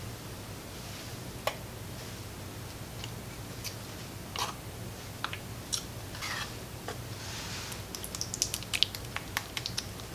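Thick dulce de leche being spooned from a tin into a glass bowl: sticky, wet squelches with scattered light clicks and taps of the metal spoon, then a quick run of sharp clicks near the end.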